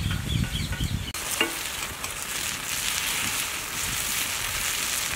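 Omelettes frying on a flat iron griddle over a wood fire, with an even, steady sizzle. Before the sizzle takes over about a second in, there is a low rumble with a few bird-like chirps, and a short tick comes just after.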